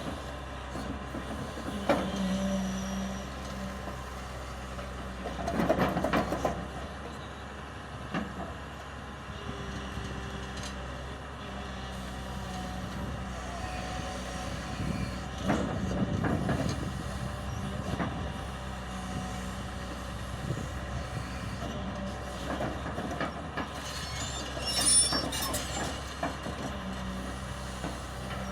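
Excavator's diesel engine running steadily while it works a roller attachment, with louder clattering surges a few times, the loudest near the end with a high squeal.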